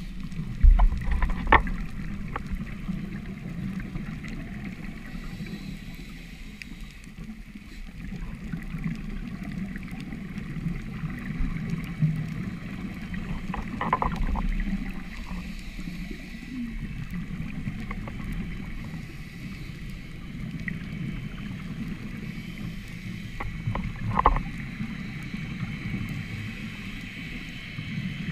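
Muffled underwater sound picked up through a sealed camera housing: a steady low rumble with a faint hiss above it, and a few brief louder bursts about a second in, around fourteen seconds in and around twenty-four seconds in.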